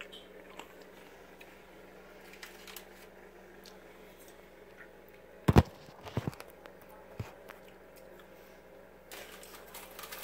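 Knocks and clicks from a phone being handled and moved over a kitchen counter. One sharp knock comes about five and a half seconds in, followed by a few smaller clicks and taps, over a faint steady hum.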